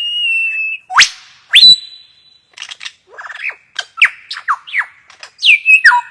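Bird calls: a held whistled note, two sharp upward-sweeping whistles, then a quick run of short falling whistled notes.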